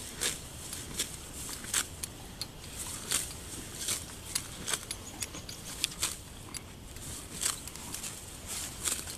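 Dairy cow grazing, ripping off full mouthfuls of grass with repeated sharp, crisp tearing sounds at an irregular pace of roughly one or two bites a second.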